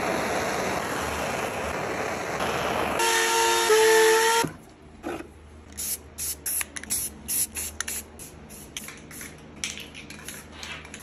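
A blowtorch flame hissing steadily while charring the wood, then a brief loud humming tone with overtones. After that, an aerosol spray-paint can sprays in a rapid run of short bursts, about three a second.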